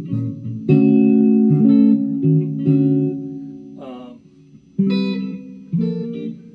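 Firefly FFLPS Les Paul-style electric guitar played clean through an amp: chords struck one after another and left to ring and fade, with a short slide near the middle and a few more chords near the end. The tone of its stock pickups is a little dull, to the player's ears.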